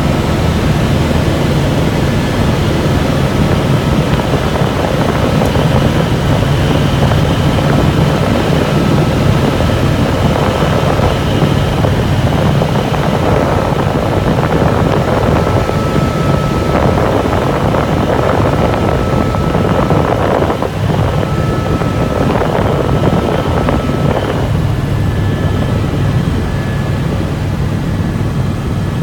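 Helicopter cabin noise in flight: the loud, steady drone of the engine and rotor heard from inside the cabin, with a thin steady whine above it.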